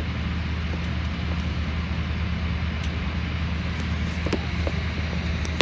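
Steady low hum and rush inside an airliner cabin as the jet taxis: idling engines and the air-conditioning, with a few faint clicks in the second half.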